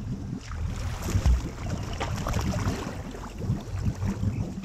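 Water splashing and sloshing close to the microphone as a slalom waterskier goes off the dock into the lake, with wind noise on the microphone.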